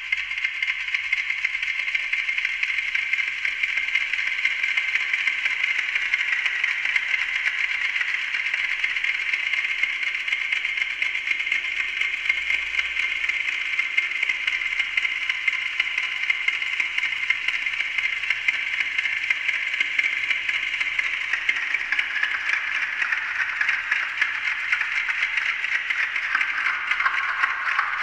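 Amplified ticking of a Westclox Silver Bell alarm clock, fed through a voltage-controlled digital delay and a bank of fixed delays, so that the overlapping copies form a dense, fast rattle of ticks. About twenty seconds in, the rattle grows fuller and wider in pitch.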